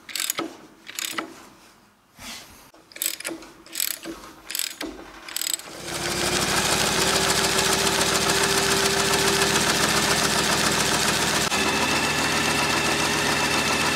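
A few sharp metal clicks and knocks from work on the mower head, then about six seconds in a Ventrac compact tractor's engine is running steadily, with a faint high whine joining near the end.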